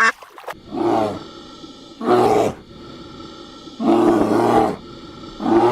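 A bear giving four short, deep calls, each about half a second long and spaced one and a half to two seconds apart.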